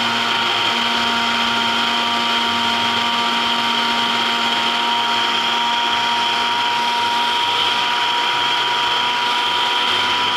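Vitamix E320 Explorian blender's 2.2 horsepower motor running at full speed, blending a strawberry smoothie in its personal cup. A loud, steady high-pitched whine that holds one pitch throughout.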